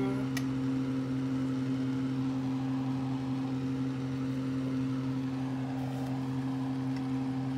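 Steady motor hum: a constant low drone with a higher overtone over a light hiss, unchanging throughout, with one brief click about half a second in.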